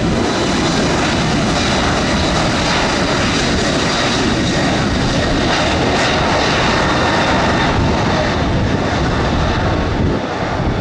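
Airbus A321neo jet engines at high thrust on the takeoff roll: a loud, steady rushing noise that eases slightly near the end.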